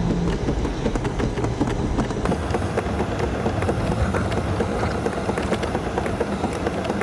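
Vehicle driving over a bumpy grass field, heard from inside the cab: a continuous rumble thick with rattles and knocks from the body and suspension.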